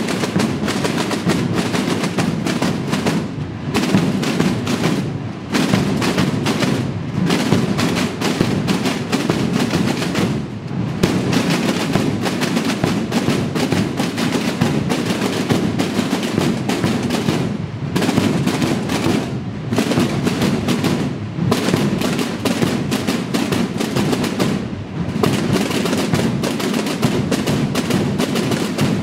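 Massed snare drums, with large bass drums, of a marching drum corps played all together in a loud, dense, unbroken drumbeat, broken by short pauses every few seconds.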